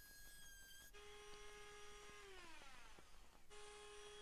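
Excel 18V cordless trim router's motor running at a steady high pitch, heard faintly. About two seconds in it winds down, its pitch falling, and after a short gap it runs steadily again.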